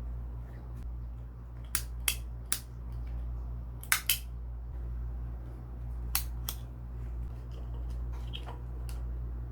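Several sharp clicks, some in quick pairs, over a steady low hum, as of small tools or parts being handled during a repair.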